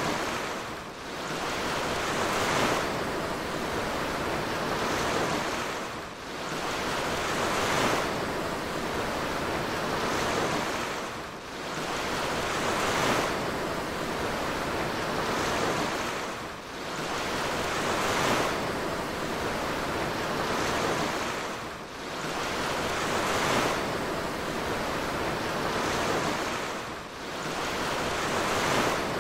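Rushing water of a cruise ship's wake churning behind the stern, with wind. The sound swells and eases about every five seconds.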